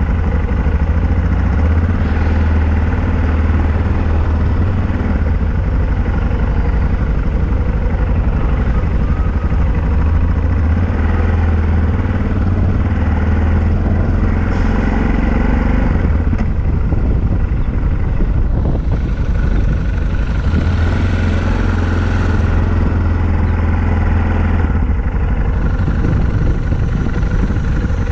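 Yamaha XT660Z Ténéré's single-cylinder engine running while riding, a steady loud rumble whose pitch shifts as the speed changes.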